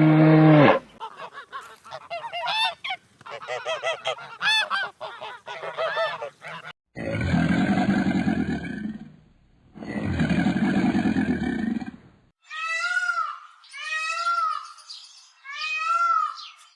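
A series of animal calls from different animals in turn: several seconds of many short chirping calls, then two long low calls, then three short higher calls near the end.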